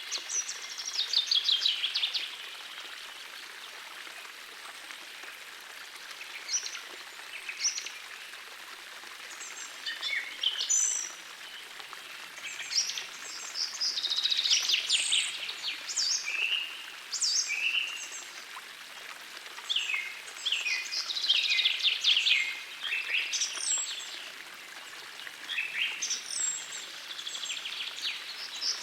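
Songbirds singing in repeated short phrases of rapid trills and whistles every few seconds, over the steady rush of a gentle forest stream.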